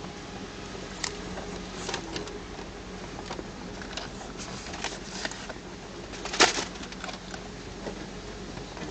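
Inside a Land Rover's cab on a bumpy dirt trail: a steady low engine hum under irregular clicks, rattles and knocks from the cab and body, with one sharper knock about six and a half seconds in.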